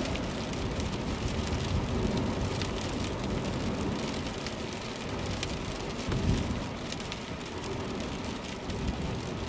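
Car interior while driving in rain: steady low road and tyre noise on wet pavement, with raindrops ticking on the windscreen and body. A brief louder low swell comes about six seconds in.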